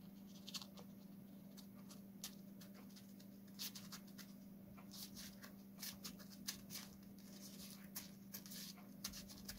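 Small scissors snipping away excess covering material along the edge of a balsa model-aircraft fin, with the loose covering crinkling: a run of short, irregular snips and rustles over a steady low hum.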